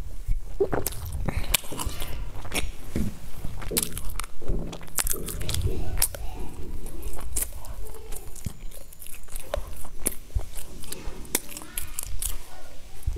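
Chewing and biting of a crusty sesame-topped baked bread close to a clip-on microphone, with many irregular crunchy clicks from the crust.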